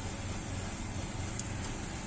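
Steady low hum with a faint hiss, room noise of a running fan or machine, with a faint tick about one and a half seconds in.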